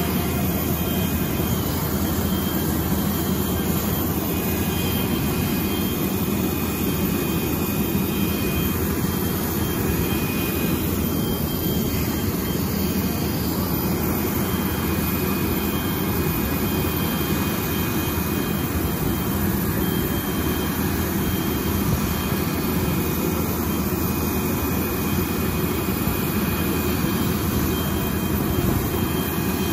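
Steady drone of turbine-type ground power running for the parked Avro Vulcan XL426 during its preflight demonstration, with a faint high whine that comes and goes.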